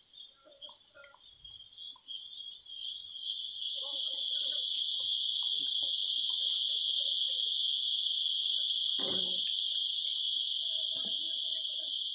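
Cicadas singing: a high buzz that pulses at first, then swells about two seconds in into a loud, steady drone.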